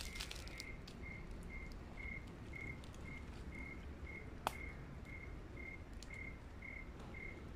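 A cricket chirping steadily and faintly, about two short high chirps a second, with one sharp click about four and a half seconds in.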